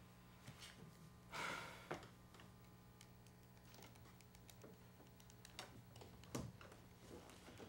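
Near silence: room tone with a steady low electrical hum, a short soft noise about one and a half seconds in, and a few faint knocks.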